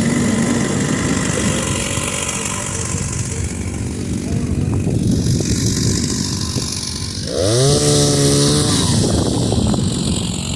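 Chainsaw engine running. About seven seconds in, it revs up sharply and holds high for a second or so before dropping back.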